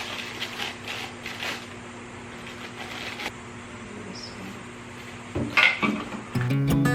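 A few light clicks and knocks of small plastic vacuum parts and accessories being handled, with a louder cluster of knocks near the end. Background music with guitar comes in just at the end.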